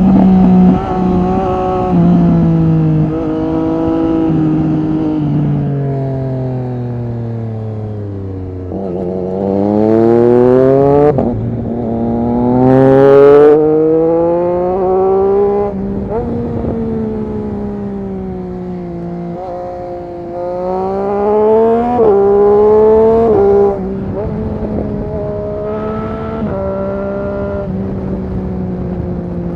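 Triumph Street Triple RS 765's three-cylinder engine through an SC-Project S1 exhaust, under way. The revs fall for several seconds, then it accelerates hard with several sharp drops in pitch at the upshifts, and settles to a steadier pitch near the end.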